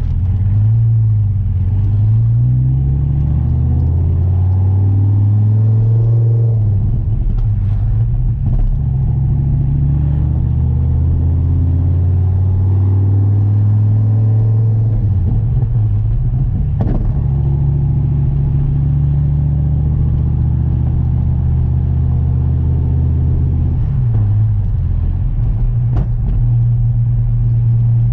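Dodge Viper's 8.4-litre V10 running under way. The engine note rises over the first few seconds, then holds fairly steady, dipping and recovering a couple of times as the revs change. Two sharp clicks are heard in the second half.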